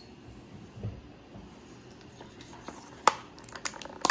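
Rigid plastic clamshell blister pack being worked open by hand: a soft thump about a second in, a sharp click about three seconds in, then a run of small plastic clicks and crackles near the end.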